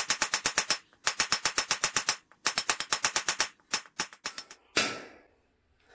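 Hammer rapidly striking the end of a cam bearing installer bar, driving a new cam bearing into an LS engine block: three quick runs of sharp metal taps, about ten a second, with short pauses. It slows to a few single taps, then one last harder blow with a brief ring near the end.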